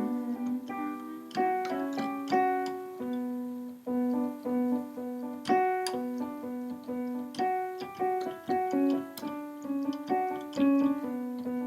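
Background piano music: a melody of struck notes ringing and fading over a lower line.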